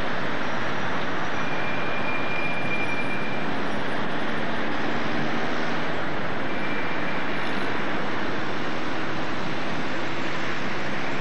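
Steady, even rushing noise of city traffic picked up by a home video camera's built-in microphone, with no clear single event standing out.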